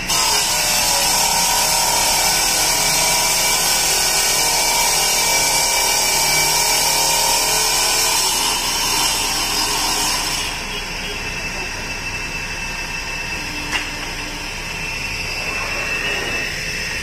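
Electric circular stone-cutting saw slicing through a stone slab as it is pushed through the blade: a loud, high grinding. About ten seconds in the cut ends and the saw keeps running more quietly.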